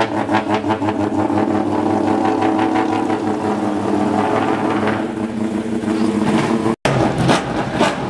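Mazda RX-8 GT race car's rotary engine idling in a loud, lumpy, pulsing rhythm over a steady drone. The note eases somewhat around five seconds in. A sudden split-second dropout near the end is followed by a different pulsing engine sound.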